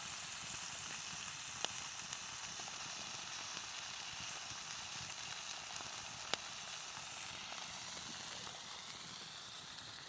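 Sweet and sour pork with kielbasa sizzling in a pan over a campfire, a steady frying hiss with a couple of sharp pops.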